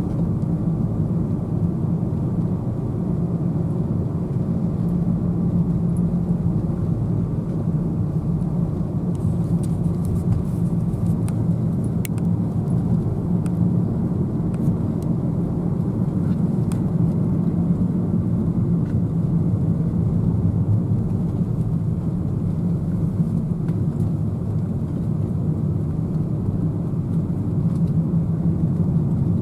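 Engine and tyre noise inside the cabin of a car driving along a hill road: a steady low drone, with a few faint clicks around the middle.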